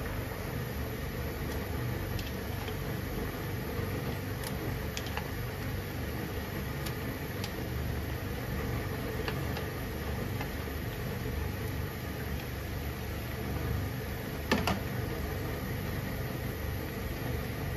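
Pasta water boiling vigorously in a frying pan: a steady bubbling rumble, with a few light clicks and one sharp knock about three-quarters of the way through.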